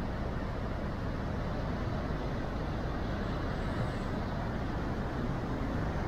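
Large waves breaking on a rocky shore: a steady, deep rush of surf with no single crash standing out.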